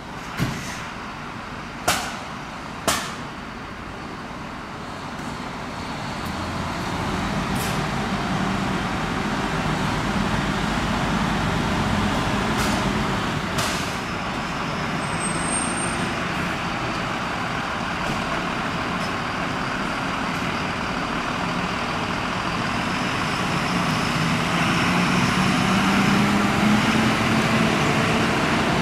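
Diesel engines of fire trucks running as they pull out of the station and drive off, the engine noise swelling from about six seconds in and louder again near the end. Three sharp bangs in the first three seconds.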